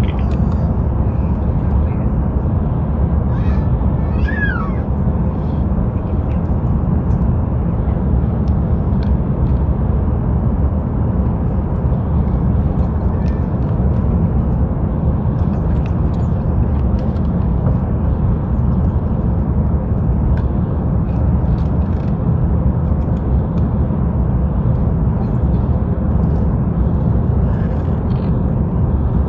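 Steady cabin noise inside an Airbus A350-900 airliner on approach: airflow and engine noise, heaviest in the low end. A brief falling high-pitched cry cuts through about four seconds in.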